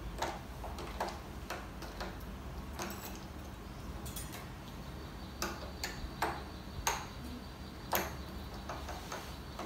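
A 12-string guitar's tuning machines being turned by hand while a new string is wound on: irregular small clicks and ticks, with a few louder ones in the second half.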